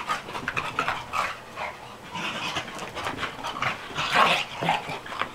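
A corgi and an English bulldog play-fighting and chasing, making short vocal play noises with scuffling and clicking from their movement. The loudest burst comes about four seconds in.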